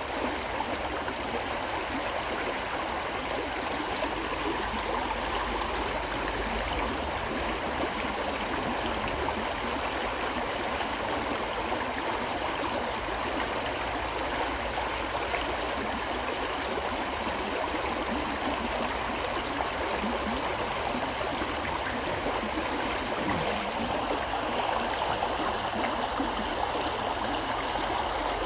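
A shallow river or stream flowing steadily over stones, a continuous rushing and gurgling of water.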